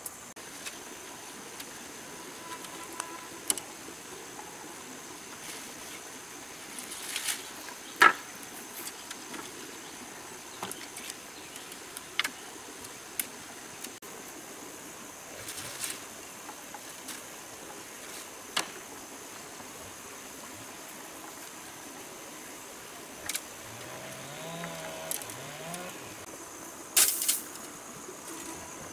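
Scattered sharp knocks and clatters of bamboo poles being handled and laid on a woven bamboo shelter roof, with a few louder strikes near the end, over a steady high insect drone.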